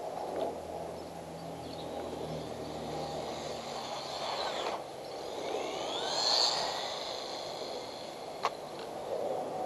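Small RC car's electric motor whining and rising in pitch a little past halfway as it speeds up, over a steady rushing noise, with a sharp click near the end.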